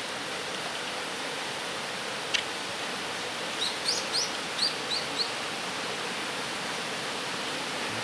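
Steady rush of falling water, with a small bird calling over it: one sharp high call about two seconds in, then a quick run of about six short chirps a second or so later.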